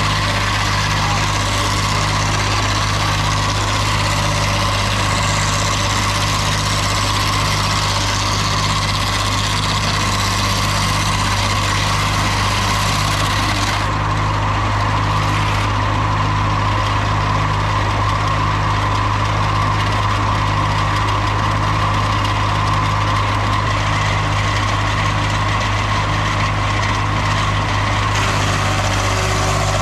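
An engine running steadily at idle with an even low pulse a little over once a second; the high hiss drops away about halfway through.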